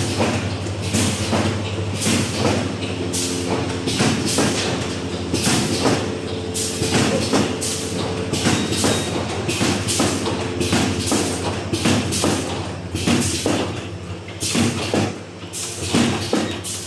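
Automatic mooncake moulding machine running, its mechanism knocking and clattering several times a second over a steady motor hum.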